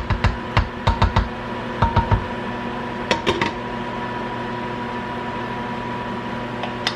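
A utensil knocking and scraping against a pot while rice is stirred, about a dozen sharp knocks in the first three and a half seconds, some of the rice stuck to the pot. A steady appliance hum runs underneath.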